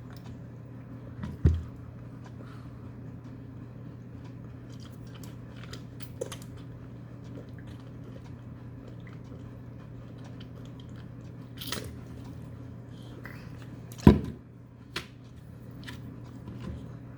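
A toddler eating finger food: soft chewing and mouth sounds with small clicks of food and hands on his tray, over a steady low hum. Two sharp knocks stand out, one about a second and a half in and a louder one about 14 seconds in.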